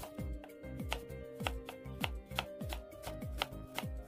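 Kitchen knife slicing a peeled onion into half-rings on a wooden cutting board: a steady series of crisp cuts, each ending in a tap of the blade on the board, about three a second.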